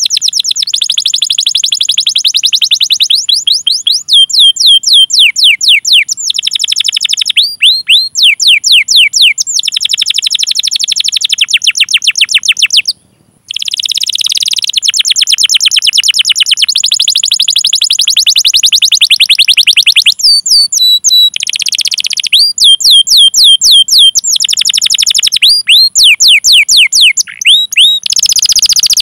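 Domestic canary singing in long, fast rolling trills of rapidly repeated high notes, broken up by quick sweeping 'cuit cuit' call notes. The song breaks off very briefly about halfway through.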